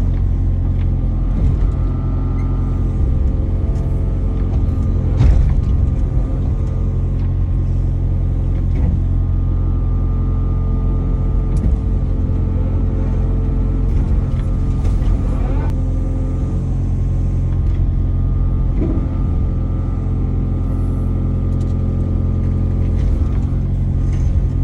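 Diesel engine of a compact tracked earthmoving machine running steadily under work, with a few short knocks and clanks.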